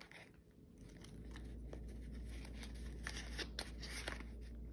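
Paper banknotes and a clear plastic zip pocket of a cash-envelope binder rustling and crinkling as bills are tucked in and pulled out, with scattered small clicks.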